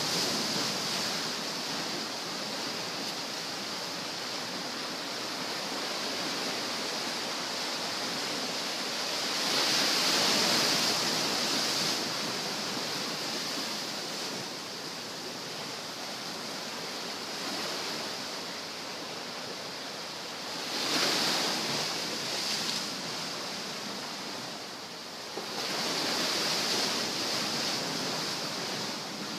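Surf washing on a sandy shore, a steady rushing that swells louder three times as bigger waves break.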